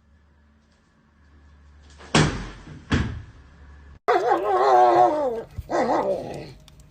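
A dog barks twice, then gives two drawn-out calls with a wavering pitch.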